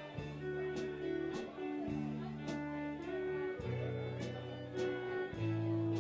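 Live acoustic country string band playing: upright bass holding long low notes under acoustic guitar and fiddle. Sharp clicks from a pair of spoons keep a steady beat of about two a second.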